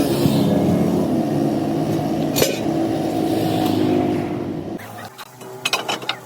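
A motor running steadily, then stopping about five seconds in, followed by a few sharp metallic clicks near the end.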